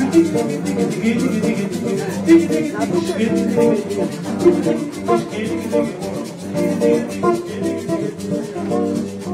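Live Brazilian music: acoustic guitar playing chords with a hand shaker keeping a steady, fast rhythm.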